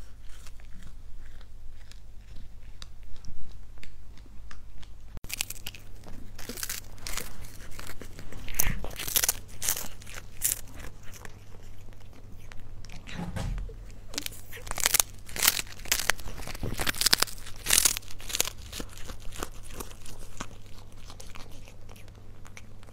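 A cat biting and chewing a small dried fish, with crisp crunches. From about five seconds in, the sharp crunches come thick and fast in quick clusters.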